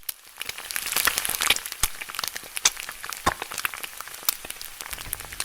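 Dense, irregular crackling and sharp clicks that build up over the first second, then continue unevenly.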